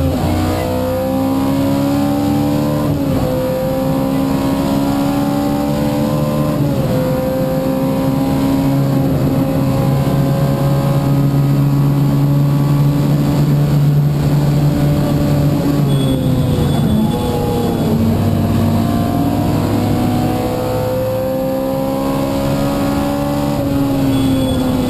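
Opel Kadett 2.0e rally car's four-cylinder engine at full throttle, heard from inside the car: the pitch climbs and drops at each upshift, about three and seven seconds in, holds at high revs for several seconds, dips about two-thirds through, then climbs again to another shift near the end, over steady road noise.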